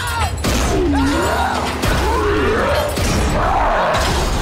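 Animated-film soundtrack: music and sound effects, with sliding, swooping tones that rise and fall every second or so over a steady low rumble.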